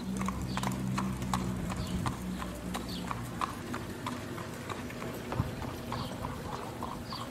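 Horse's hooves clip-clopping on asphalt as a horse pulls a buggy along the street, a steady run of sharp hoof strikes several a second. A low steady hum sits under the hooves for the first couple of seconds.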